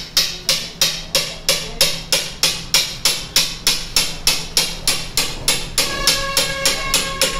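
Hand crimping pliers clicking tab after tab as they bend the metal header tabs of a Hyundai i10 diesel radiator back over the tank and its gasket, about three and a half sharp metallic clicks a second. A few steady ringing tones join near the end.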